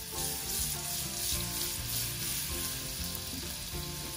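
Freshly added chopped garlic frying in a little hot oil in a small nonstick pan: a steady sizzle, the garlic's first stage of frying before it turns golden brown.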